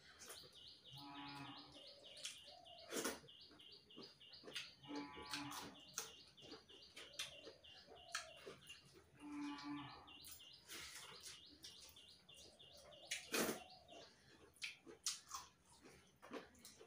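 Hand-eating sounds: fingers working rice on steel plates with scattered sharp clicks of metal, loudest about 3 s and 13 s in. Behind them a rapid high chirping runs until a few seconds before the end, and three short animal calls come about 1, 5 and 9.5 seconds in.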